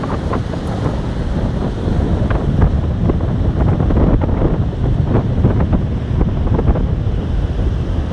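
Wind buffeting the microphone in a loud, gusty rumble, over small waves breaking and washing up a sandy beach.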